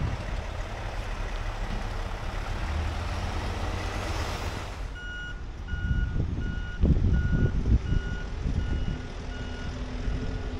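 Steady rushing noise for about five seconds, then a heavy vehicle's backup alarm beeping about twice a second over a running diesel engine, with a few heavy low thumps partway through.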